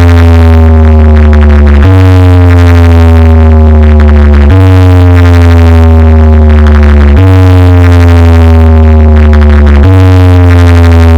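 Loud, bass-heavy electronic music: a synth loop with a deep, steady bass and slowly falling tones that restarts about every two and a half seconds.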